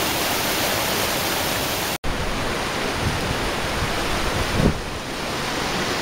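Steady rush of a fast-flowing mountain creek, an even hiss of water, broken by a sudden brief dropout about two seconds in.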